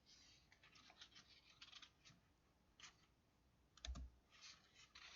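Near silence with faint scattered clicks and short scratching strokes, and a soft thump about four seconds in.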